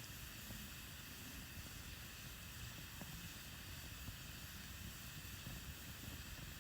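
Campfire burning with a soft, steady hiss and a few faint crackles.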